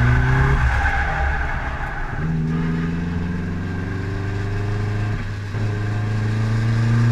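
Turbocharged SR20 four-cylinder engine of a Nissan S13, heard from inside the cabin while drifting. The engine note breaks up off the throttle about half a second in, holds steady from about two seconds in, then rises steadily in pitch as it accelerates from about five and a half seconds in.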